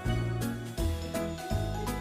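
Instrumental background music with a light, jingly melody over a steady bass, the notes changing about twice a second.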